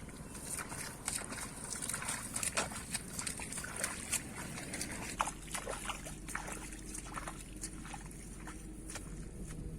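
Water splashing and sloshing in irregular small strokes and drips.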